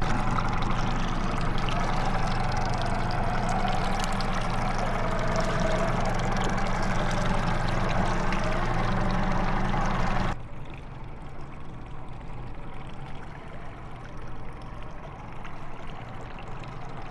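Water pouring steadily onto a boat deck over the low, steady hum of the boat's motor. About ten seconds in, the pouring and hum cut off suddenly, leaving a quieter wash of water.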